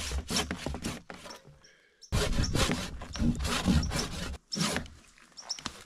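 Hand saw cutting through a birch trunk in runs of quick back-and-forth strokes, with a short pause about a third of the way in.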